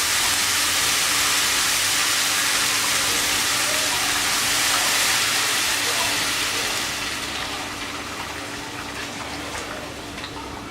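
Water poured into a hot pan of oil-fried rice: a loud gushing sizzle that dies down after about seven seconds to a quieter hiss with a few small pops.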